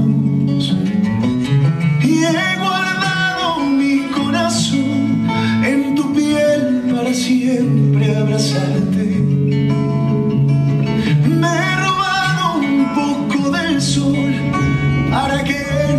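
Recorded song with a singing voice over plucked acoustic guitar and a steady bass line.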